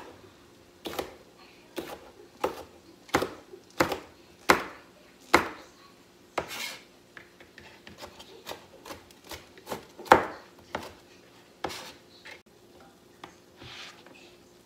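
Chef's knife chopping peppers on a thin plastic cutting board: a run of firm, evenly spaced chops, a little over one a second, for the first five seconds or so, then lighter, uneven cuts with one loud chop about ten seconds in.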